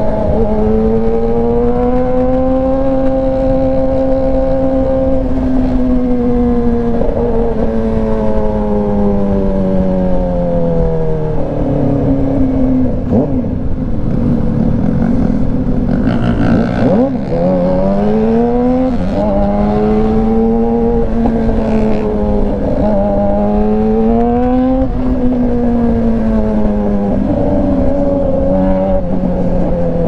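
Yamaha R6 599 cc inline-four engine breathing through an Austin Racing exhaust, heard from the rider's seat on the move. Its pitch climbs and falls as the throttle is rolled on and off through the gears, dropping low around the middle and then climbing hard again, with wind rush underneath.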